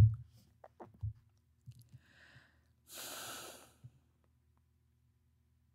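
A person's quiet breathing with small mouth clicks: a soft thump at the start, a faint breath about two seconds in, and a longer, more audible breath about three seconds in.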